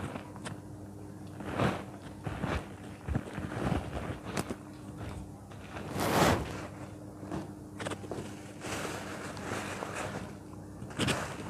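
Packed balls of moist yellow sand crushed and crumbled by hand: irregular crunches and grainy crumbling as the sand breaks apart and falls, loudest about six seconds in and again near the end.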